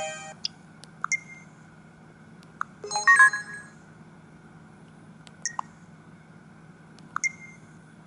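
A Samsung SGH-E250i mobile phone: a ringtone cuts off in the first half second, then the phone gives scattered sharp key clicks, several with a short high beep, and a brief burst of a few notes about three seconds in.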